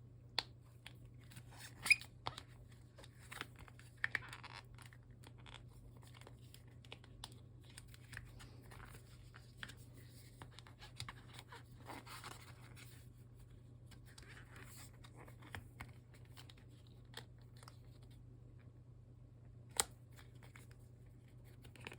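Faint handling noise from a protective phone case being fitted onto a smartphone: plastic crinkling and rustling, with scattered sharp clicks and taps, the loudest about two seconds in and near the end. A faint steady low hum runs underneath.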